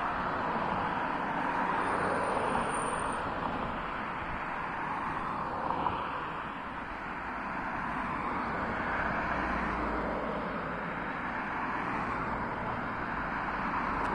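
A line of cars drives past one after another, their tyre and engine noise swelling and easing as each one goes by. The cars are race-convoy team cars carrying bicycles on roof racks, and police cars.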